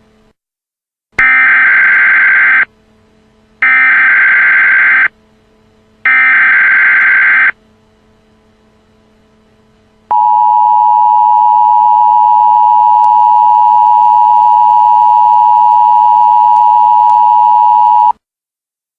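Emergency Alert System tones: three short bursts of SAME header data, each about a second and a half long with short gaps between, then after a pause the two-tone EAS attention signal holds steady for about eight seconds and cuts off. The header bursts carry the coded alert, and the attention signal announces that an emergency message follows.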